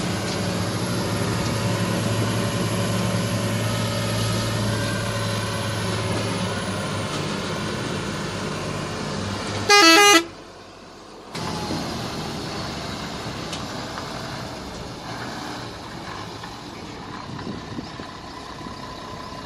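Ashok Leyland 4x4 borewell drilling rig truck's diesel engine running as it drives slowly over sand, with one short, loud, pulsing horn blast about halfway through. Right after the horn the sound drops out for about a second, then the engine returns fainter.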